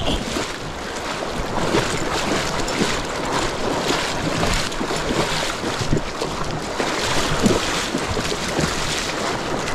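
Steady rush of water through a shallow river rapid, an even hiss with no let-up.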